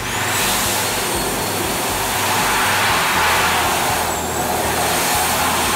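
Mitsubishi Electric Jet Towel Smart high-speed hand dryer cutting in abruptly as hands go under it, then blowing a loud, steady rush of air.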